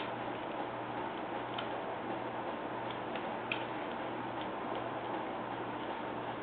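Carving knife paring small slivers from a wooden carving: a few faint, irregular clicks as the blade cuts, over a low steady hum.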